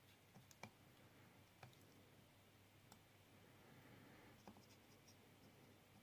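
Near silence with a handful of faint, sharp clicks, the strongest under a second in.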